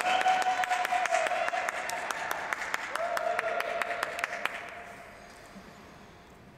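Sparse audience applause, individual claps audible, fading out about four and a half seconds in to quiet rink-hall room tone.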